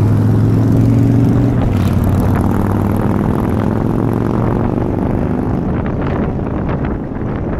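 Low, steady engine drone from a motorcycle running alongside and surrounding traffic, strongest at first and fading over the first few seconds as the vehicle moves off. Wind then rushes across the microphone mounted on the outside of the moving vehicle, buffeting in gusts near the end.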